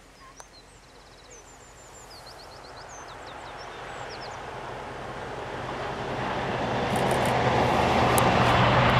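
Diesel locomotive approaching and passing close. Its engine and the rumble of wheels on rail grow steadily louder, and it is loudest near the end. A small bird chirps a run of quick high notes in the first few seconds.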